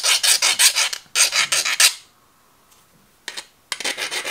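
A hand file rasping against the soft die-cast aluminium bearing housing in quick, short strokes, in two bouts with a pause of about a second and a half between them. The file bites easily, the sign of a soft metal.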